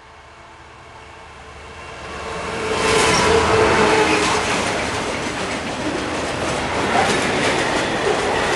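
Class 66 diesel freight locomotive approaching and passing, its engine getting louder until it goes by about three seconds in. Its freight wagons follow, clattering over the rail joints with regular wheel knocks.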